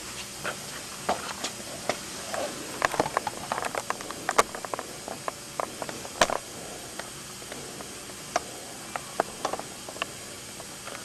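Irregular small clicks and taps over a steady background hiss, from the camcorder being handled as it zooms and focuses.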